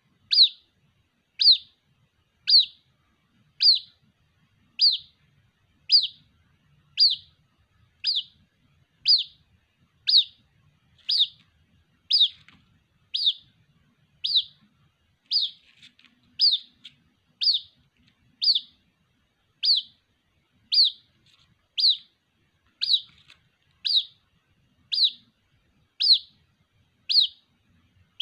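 White-breasted waterhen (ruak-ruak) chick calling for its parent: a short, high call that drops in pitch, repeated evenly about once a second.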